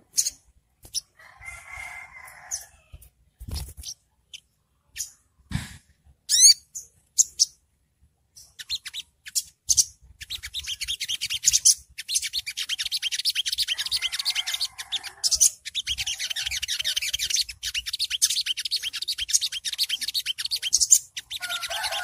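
Olive-backed sunbird song: scattered sharp high chirps and a few quick sliding notes, then from about ten seconds in a fast, dense, continuous high twittering trill, the 'ngriwik' style, broken by brief pauses. A lower, rougher call sounds twice behind it.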